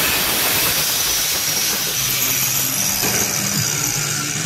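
Angle grinder with a cut-off wheel cutting through a steel rod clamped in a vise, a loud steady hiss of wheel on metal.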